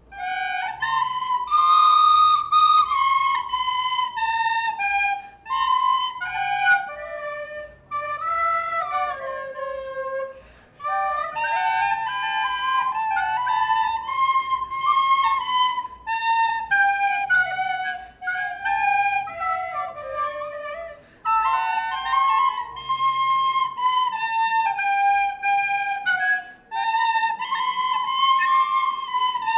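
A flute playing a solo melody in short phrases, with a faint low rhythmic accompaniment that drops out about two-thirds of the way through.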